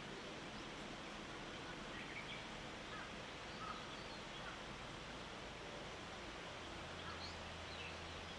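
Faint outdoor morning ambience: a steady hiss with a few faint, short bird chirps scattered through it. A low hum lies underneath and shifts about seven seconds in.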